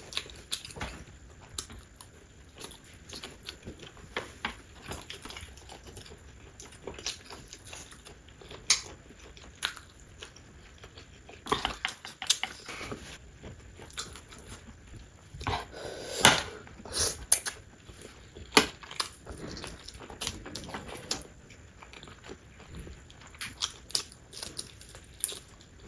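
Close-miked eating: chewing and biting food with wet, clicky mouth sounds, louder in a few short clusters about halfway and about two-thirds through.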